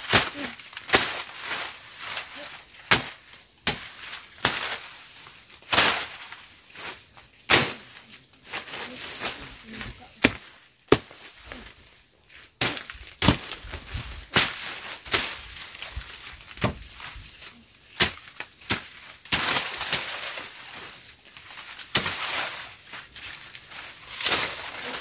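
Machete (parang) slashing through brush and undergrowth: sharp, swishing chops at an irregular pace of roughly one a second, with the rustle of cut vegetation between strokes.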